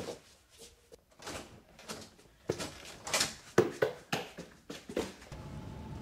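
A string of irregular knocks and thumps of varying loudness. From about five seconds in, a steady low hum with a faint tone sets in.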